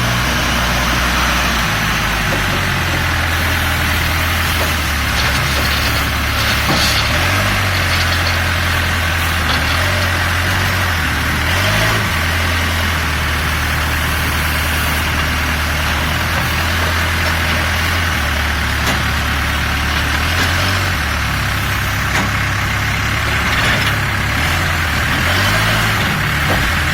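Case N series backhoe loader's diesel engine running as the machine works, its engine speed stepping up and down repeatedly, with a few brief knocks about a quarter of the way through.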